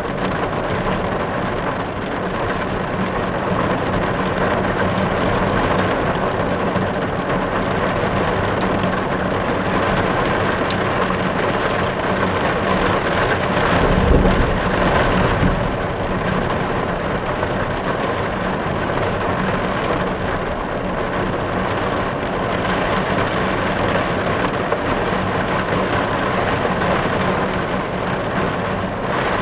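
Steady rain drumming on a car's roof and body, heard from inside the car, with a brief low rumbling swell about halfway through.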